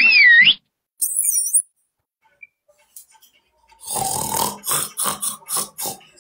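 A man imitating a pig with a quick run of about eight grunting snorts in the second half. It is preceded by a short wavering whistle at the start and a high chirp about a second in.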